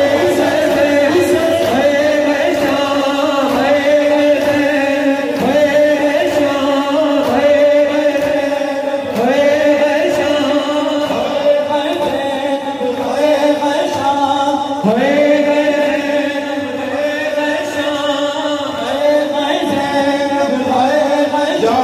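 A noha (Shia lament) chanted by several men into microphones over a PA, in slow phrases of long held notes with mourners joining in. Faint rhythmic chest-beating slaps of matam sound underneath.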